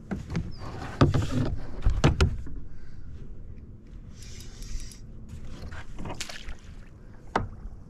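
Water splashing and sloshing beside a kayak as a hooked largemouth bass thrashes at the surface and a landing net is swept through the water. Several sharp knocks, the loudest between one and two seconds in.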